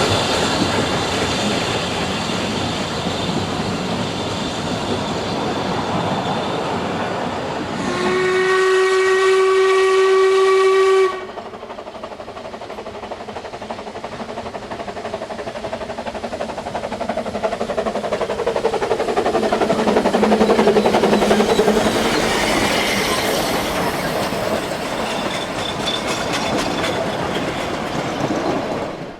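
Steam train running, with one steady whistle blast of about three seconds starting about eight seconds in that cuts off suddenly; the running noise later swells and fades again.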